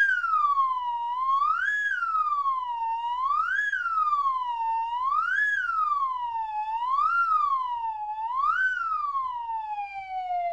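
Slide whistle swooping up and down in pitch about once every two seconds, then ending in one long, slow fall in pitch.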